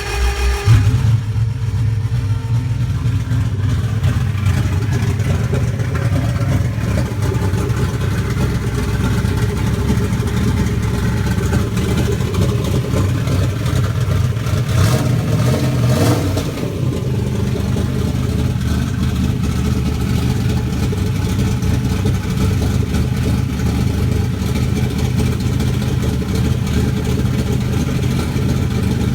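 Turbocharged Toyota 1UZ-FE V8 running with no exhaust fitted, idling roughly on big custom Kelford 286 cams.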